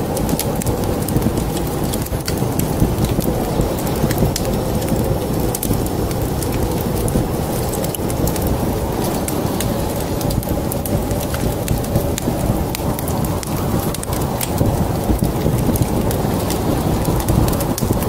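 Wood fire crackling in a fireplace: frequent sharp snaps and pops over a steady, deep rumbling noise.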